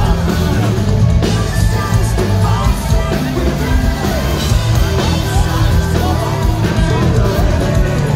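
Live pop-punk band playing loud through a concert PA, heard from the audience: electric guitars, bass and drums, with a vocalist singing into the microphone.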